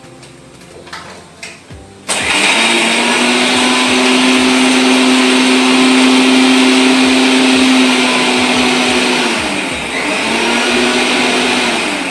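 Electric mixer-grinder switched on about two seconds in, grinding a batch of cooled spice masala. The motor runs at a steady hum, eases off briefly near ten seconds and picks up again, then starts winding down at the end.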